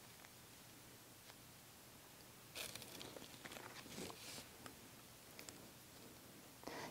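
Near silence, then about two and a half seconds in a brief spell of soft rustling and small clicks as a sleeved arm reaches across the painting table and handles the paint things, followed by a few faint ticks.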